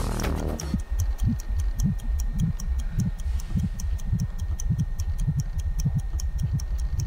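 Suspense sound design of a drama: a clock-like ticking at about four ticks a second over deep, uneven low pulses. It starts just under a second in, as the music before it ends.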